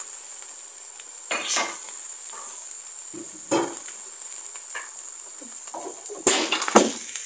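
Freshly added chopped onion, tomato and other sofrito vegetables sizzling in hot oil in a frying pan, a steady high hiss. A few short knocks and clatters break in, the loudest group near the end.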